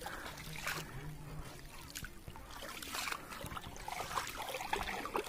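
Shallow stream water trickling around a foot standing in it, with faint small splashes and ticks.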